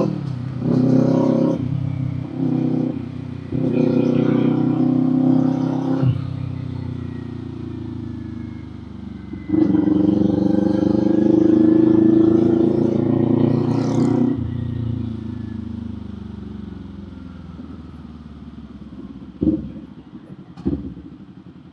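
Kawasaki Z400 parallel-twin motorcycle engine through an aftermarket muffler, ridden in traffic. It gives several short throttle bursts, then one hard acceleration about halfway through with the pitch climbing for about four seconds. The note falls away as the throttle is rolled off, and there are two short sharp pops near the end.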